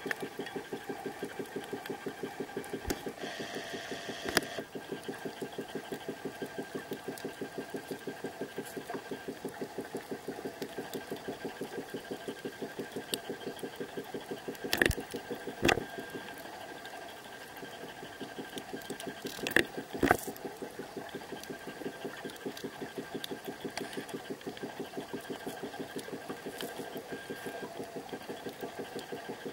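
Lens motor of a Panasonic Lumix TZ10, picked up from inside its sealed underwater housing: a rapid, even mechanical pulsing that stops for about two seconds midway. A few sharper knocks stand out, the loudest about halfway through.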